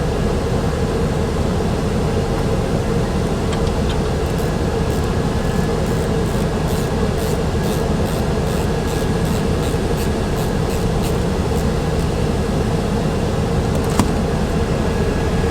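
Steady mechanical hum, like an air-conditioning unit running. A run of faint quick clicks, about three a second, sounds in the middle, and there is one sharp click near the end.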